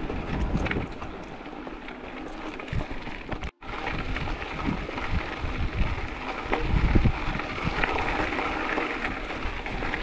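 Wind buffeting the microphone during a mountain bike ride, over a steady rushing noise. The sound drops out for an instant about three and a half seconds in.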